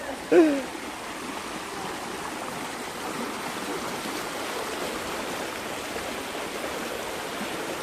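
Steady rushing of a waterfall's falling water, with a brief human vocal sound about half a second in.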